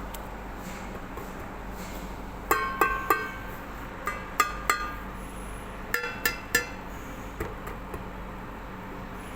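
Hard small objects clinking or tapping together, about ten short sharp strikes with a brief ringing pitch, falling in three quick groups of three and one last tap, over a steady low hum.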